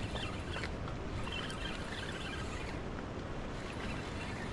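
Steady rush of river water flowing past the bank.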